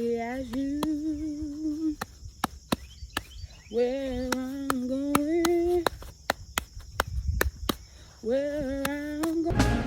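A voice humming or wailing a slow, mournful tune in three long wavering phrases, with sharp clicks and knocks between them.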